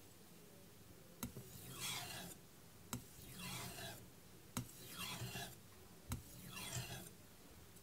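An aogami #2 carbon-steel knife blade drawn in full passes across a wet Kitayama 8000-grit finishing whetstone. There are four soft scraping strokes, each opening with a light click.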